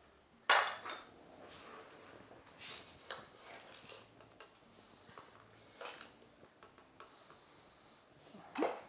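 Metal kitchenware clinking and clattering as a pot and a metal container are handled: a sharp metal knock about half a second in, lighter clinks and rustling in the middle, and another loud clank near the end.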